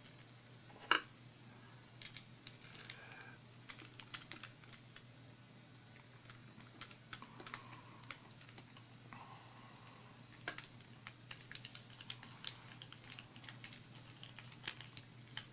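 Quiet, irregular small metal clicks, taps and light scraping as the core and parts of an American 1100 padlock are fitted back into the lock body. One sharper click comes about a second in.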